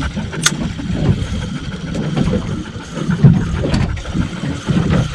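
Gusty wind rumbling on the microphone and water slapping against the hull of a small aluminium boat. A single sharp click comes about half a second in.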